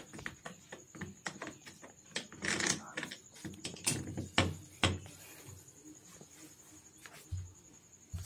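Pliers clicking and scraping on the metal pinion end of a steering rack, a quick run of small metallic clicks with a few sharper knocks about four to five seconds in as the pliers and rack are set down on the concrete floor, then it goes quieter.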